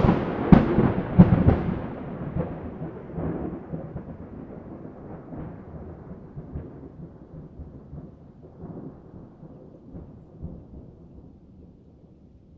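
Close thunderclap: a sharp crack followed by two more cracks within the first second and a half, then a long rolling rumble that slowly fades away.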